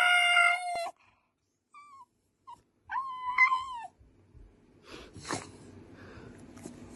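A dog's high-pitched cries: a long held cry that cuts off about a second in, two short squeaks, then another cry at about three seconds.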